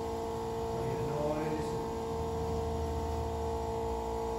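Electric fuel pump running with a steady hum, delivering about 7 pounds of fuel pressure to a nitrous oxide system.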